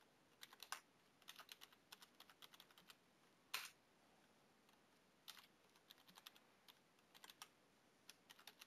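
Faint computer keyboard typing in short runs of key clicks. One louder keystroke about three and a half seconds in is the Enter key submitting the first password entry, and a second run of typing follows as the password is entered again.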